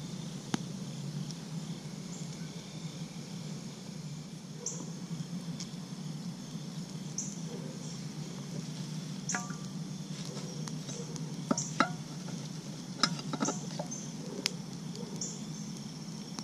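Hot coals being handled with metal tongs and set onto a cast iron Dutch oven lid: a few sharp clinks and knocks, mostly in the second half. Under them a cricket chirps every couple of seconds over a low steady hum.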